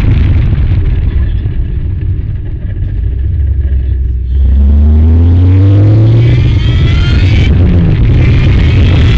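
Ariel Atom's engine heard from its open cockpit over a heavy low rumble: it eases off for a few seconds, then the revs climb steadily under acceleration, break off briefly near the end and start climbing again.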